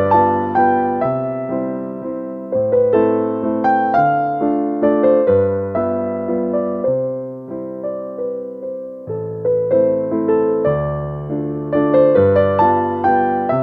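Background music: a slow, gentle solo piano piece, with low bass notes changing about every second and a half under a melody of fading struck notes.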